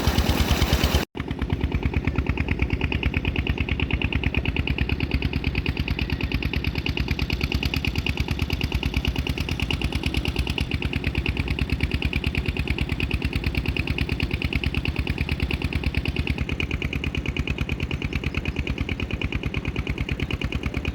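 Tubewell's diesel engine running at a steady speed, with an even, rapid firing beat. About a second in, the sound cuts out for an instant and picks up again.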